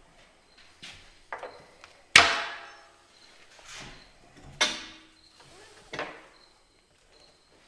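About six sharp metal knocks spread over several seconds, each ringing briefly, the loudest about two seconds in: metal parts and tools knocking together on a truck being repaired.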